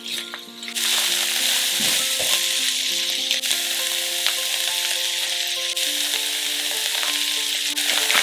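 Shredded cabbage and onion sizzling as they fry in a pan, the steady sizzle coming in about a second in, with soft background music of held notes underneath.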